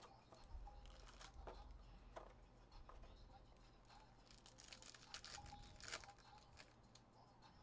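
Faint crinkling of a foil trading-card pack being handled and torn open, with a dense run of crackly tearing between about four and six seconds in.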